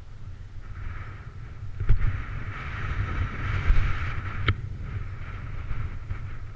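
Wind buffeting the microphone of a bicycle-mounted camera over the rolling noise of the bicycle's tyres on rough, gravelly asphalt, the rolling hiss swelling in the middle. Two sharp knocks, about two seconds in and again near four and a half seconds, as the bike jolts over the road.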